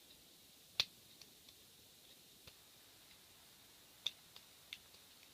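Hook pick working the pin tumblers of a rim cylinder lock: scattered small metallic clicks as the pins are lifted and set, the loudest about a second in and another about four seconds in.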